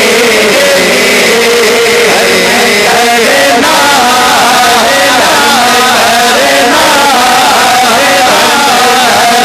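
Male voices singing a naat, an Islamic devotional song in praise of the Prophet, loud through handheld microphones and a PA system. The voices carry long, wavering melodic lines with no instrumental accompaniment.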